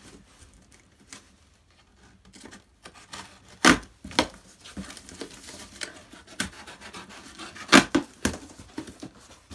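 A cardboard shipping box being opened by hand: packing tape cut with a small blade, then the flaps pried and pulled open, with scraping and rustling of the cardboard. There are two loud sharp cardboard noises, about four and eight seconds in.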